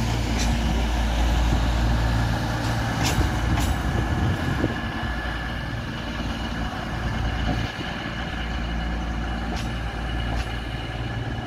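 East Midlands Railway Class 222 Meridian diesel multiple unit moving slowly past, its underfloor diesel engines running with a steady low drone. Two sharp clicks come about three seconds in, and the sound eases a little as the train draws away.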